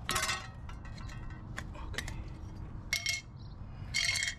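A metal scraper and a small tin can of primer clinking together: several sharp metallic clinks, the loudest ones ringing briefly, at the start, about three seconds in and near the end.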